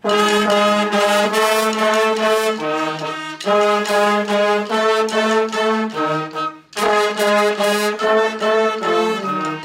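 Brass section of a school band, trumpets and trombones, playing a short rhythmic phrase together. It breaks off briefly about seven seconds in and starts the phrase again.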